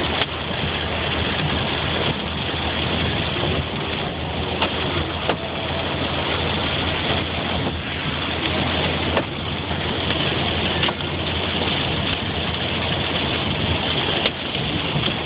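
Rain and hail drumming on a car, heard from inside the cabin over the car's engine running, with a few sharper knocks of individual hailstones every second or two.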